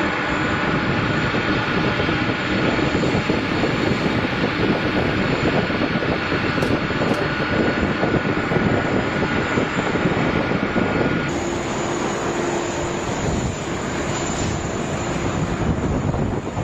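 Jet airliner engines running loud, a broad roar with a steady whine on top. The sound changes abruptly about eleven seconds in, to a slightly different roar and whine.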